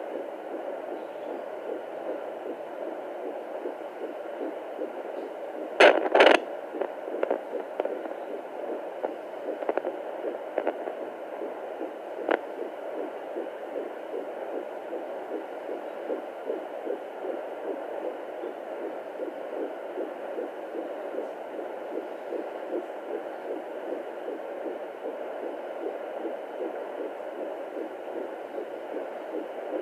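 Fetal heartbeat at 14 weeks of pregnancy, heard through the speaker of a Doppler monitor as a rapid, steady whooshing pulse over a hum. A couple of sharp knocks come about six seconds in, followed by a few lighter clicks.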